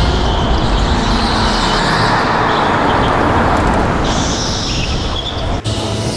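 Go-kart running at speed, heard from onboard: a steady, noisy drone that swells toward the middle and breaks off suddenly near the end.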